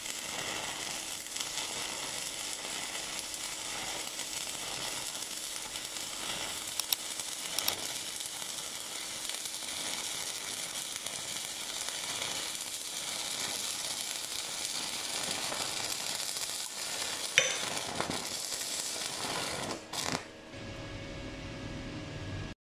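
Stick-welding arc from a 2.5 mm electrode burning on 5 mm steel plate at high amperage: a steady crackling sizzle with a few sharp pops. About twenty seconds in the arc breaks off and a quieter hum remains briefly.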